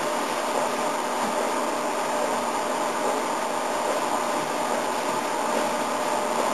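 Electric fan running steadily: an even whooshing hiss with a faint steady hum.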